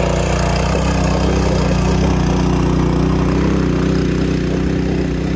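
Mini bike's small single-cylinder four-stroke engine running under load at steady revs as the bike climbs a dirt trail.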